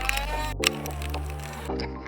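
Background music with held bass notes, shifting chords and sharp percussion hits.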